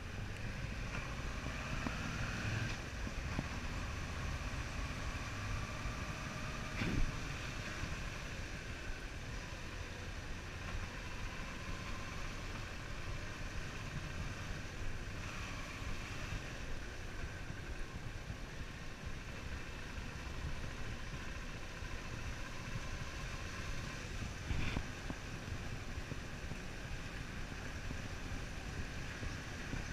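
Suzuki V-Strom 650's V-twin engine running as the bike rides slowly, with steady road and wind noise. Two short knocks stand out, one about a quarter of the way in and one near the end.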